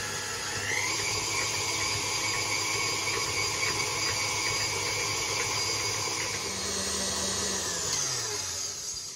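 KitchenAid stand mixer running as it creams butter and brown sugar. Its motor whine rises in pitch about a second in as the speed is worked up, holds steady, then falls away as the mixer is switched off near the end.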